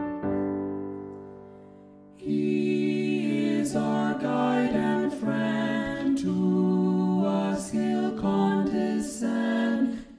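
A small four-part choir of soprano, alto, tenor and bass voices, multi-tracked, singing a hymn in harmony. A held chord fades away over the first two seconds, then the next verse starts about two seconds in.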